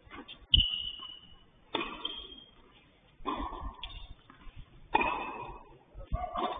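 Tennis rally: the ball is struck back and forth with rackets, about five sharp hits roughly a second and a half apart.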